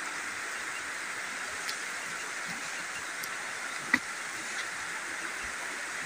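Steady rush of running spring water, with one sharp click about four seconds in.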